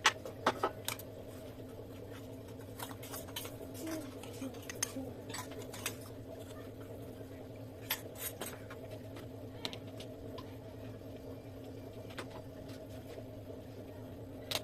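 Kitchen utensils clinking and tapping against dishes now and then, over a steady low hum.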